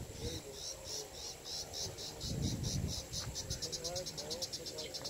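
Insect chirping: a series of short, high chirps that start slowly and speed up steadily into a fast trill before stopping. A brief low rumble comes about halfway through.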